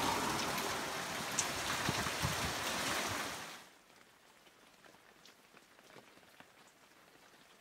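Heavy rain pouring down, a steady hiss that cuts off suddenly about three and a half seconds in, leaving near silence.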